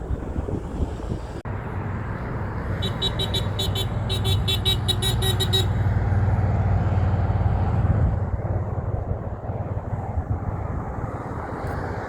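A big truck passes, its engine drone swelling to a peak and then easing off. About three seconds in it sounds its horn in a rapid string of short toots, about five a second, lasting roughly three seconds.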